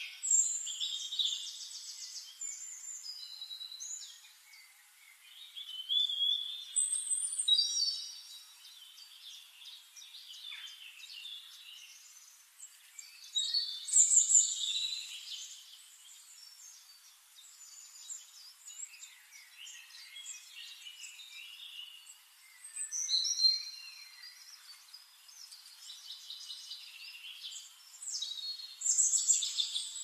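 Birds singing and calling: quick high chirps and whistled phrases that come in loud bouts every several seconds, with softer chirping between.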